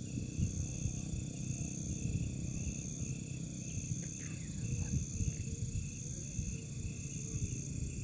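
Night insects, crickets, trilling steadily in long pulses with short breaks, over low rumbling handling and rustling noise as the camera moves through grass.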